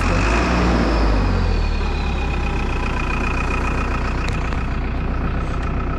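Truck's diesel engine idling with a steady low rumble, and a faint high whine falling in pitch over the first couple of seconds.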